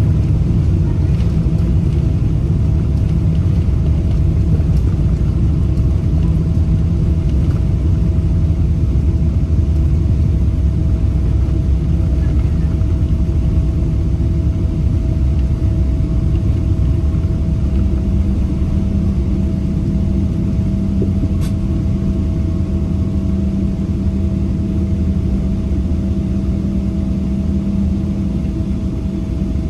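Steady low rumble of a Boeing 787 Dreamliner heard from inside the cabin, engine and airflow noise, with a faint constant whine; a second low hum joins about halfway through.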